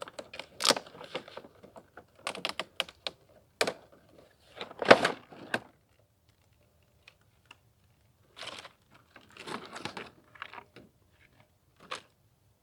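Packaging of a boxed tool set being opened and its contents handled: irregular clicks, taps and rustling, the loudest rustle about five seconds in.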